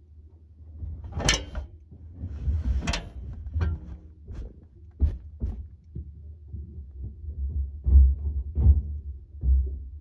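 A series of irregular thumps and knocks over a low rumble, with two sharp clicks in the first three seconds; the loudest thump comes about eight seconds in.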